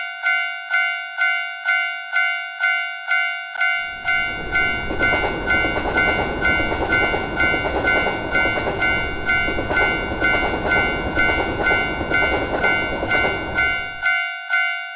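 Japanese level-crossing warning bell sounding its repeated "kan-kan" ding, about three strikes a second. From about four seconds in, a passing train's rumble and rattle is added, and it stops about a second before the end while the bell keeps ringing.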